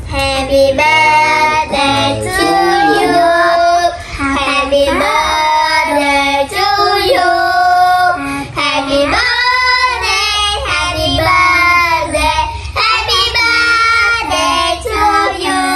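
Young children singing a birthday song together.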